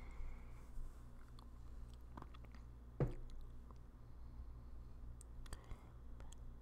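Close-up mouth sounds: soft wet clicks and smacks, with one louder knock about three seconds in, over a faint steady low hum.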